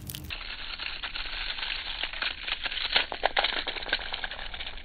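Small plastic Thomas and Friends Minis toy trains rolling and scraping over rough concrete: a gritty crackle with a run of sharp clicks in the middle.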